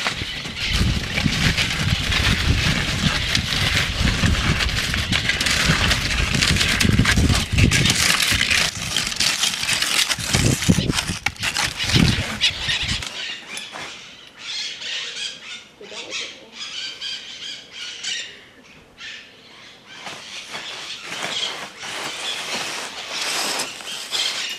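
Skis scraping over a dry dirt road, with wind buffeting the microphone, for about the first thirteen seconds. After that it drops to quieter outdoor sound with faint high-pitched bird calls.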